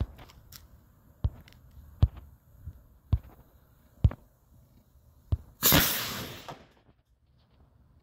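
Sharp ticks about once a second, then a homemade ammonium perchlorate–aluminium–silicone rocket motor ignites about five and a half seconds in with a sudden loud hissing rush that lasts about a second and dies away. The burn is too fast and powerful: the end cap with the nozzle blows out at once and the scattered propellant burns out quickly instead of driving the rocket.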